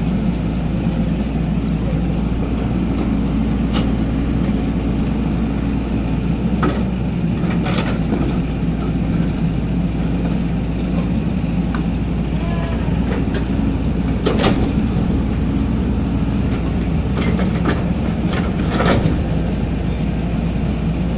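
Hydraulic excavator's diesel engine running steadily, with a few short sharp clanks, the loudest about two-thirds of the way through.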